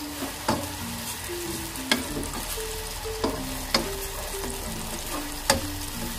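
Chopped garlic, ginger and green chillies sizzling as they fry in hot oil, stirred with a wooden spoon that knocks against the pan about five times. A soft background music melody plays along.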